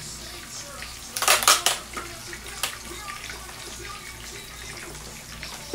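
A plastic clamshell container of cherry tomatoes being handled and opened: a loud crackling of plastic for most of a second, about a second in, then a single sharp click.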